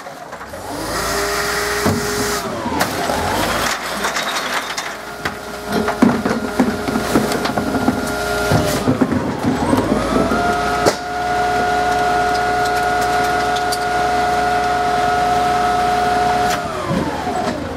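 Side-loader garbage truck raising its engine revs for the hydraulics, with a steady whine that rises, holds and falls twice, as the lifting arm tips a recycling bin and the packer clears the hopper. In between, rubbish clatters and knocks into the steel hopper.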